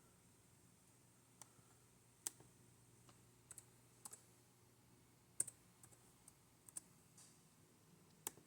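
Faint, scattered clicks of a laptop being operated, about ten sharp ticks at uneven intervals over a near-silent room.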